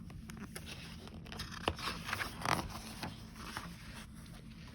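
Soft rustling and scraping of paper being handled, as of a picture book's pages being moved or turned, with a few sharper crackles in the middle.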